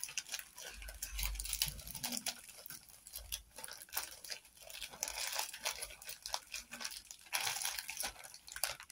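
Small plastic bags of diamond-painting drills crinkling and rustling as they are handled and packed away, with many small clicks and taps throughout.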